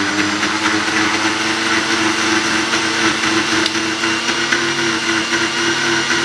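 Electric kitchen mixer grinder running steadily with an even motor whine, blending cooking oil in its jar.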